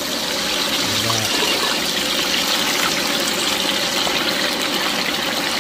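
Battered chicken pieces sizzling as they deep-fry in a wok of hot oil: a steady hiss of bubbling oil.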